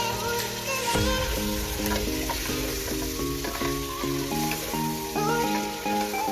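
Chicken and potato pieces sizzling in hot oil in an aluminium pot, stirred with a wooden spatula, over instrumental background music with repeated notes.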